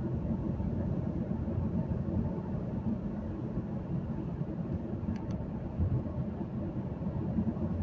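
Steady low rumble of a car driving at road speed, heard from inside the cabin: engine and tyre noise. Two faint clicks about five seconds in.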